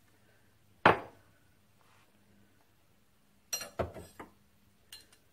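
Metal hand tools and parts clinking as they are picked up and set down on a lathe bench: one sharp knock about a second in, a quick cluster of clinks about three and a half seconds in, and a light tap near the end.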